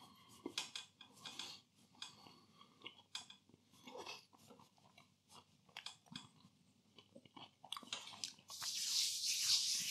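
Faint chewing of a hot cheese and onion puff-pastry bake, with soft clicks and crackles of flaky pastry in the mouth. Near the end comes a louder breathy hiss of air.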